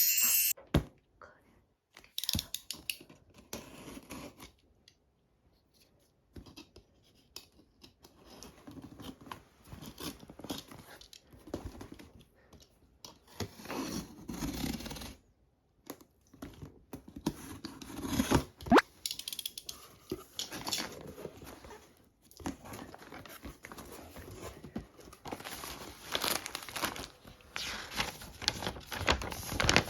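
Unboxing: packaging being torn open and handled, with crinkling plastic and paper, scrapes and small knocks, in irregular bursts that grow busier near the end.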